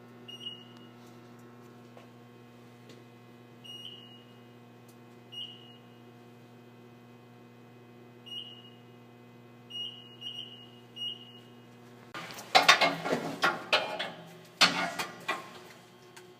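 Welder arc-welding the new cab mount into the floor: two loud crackling bursts of welding near the end. Before them come several short high-pitched chirps over a steady low hum.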